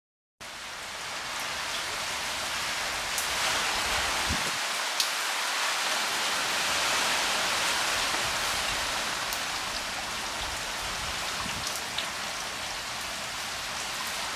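Steady rain falling, a dense hiss that starts abruptly about half a second in, with a few sharp ticks of drops landing close by.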